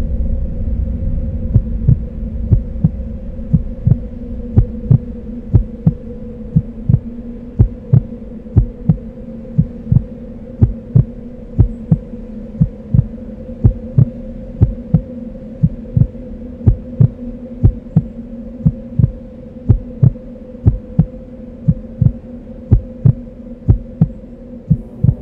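Film sound-design heartbeat: dull thumps at about two a second, starting about a second and a half in, over a steady low hum. A low explosion rumble fades away during the first few seconds.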